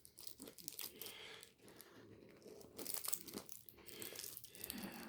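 Faint crinkling of plastic snack-sweet wrappers being handled, in scattered irregular crackles.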